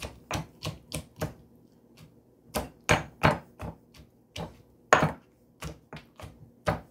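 Pestle pounding toasted peanuts in a mortar: a run of uneven knocks, about two or three a second, with a short pause about two seconds in.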